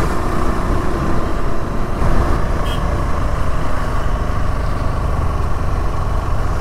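KTM 390 Adventure's single-cylinder engine running steadily under load as the motorcycle climbs a steep hill road, heard from on the bike.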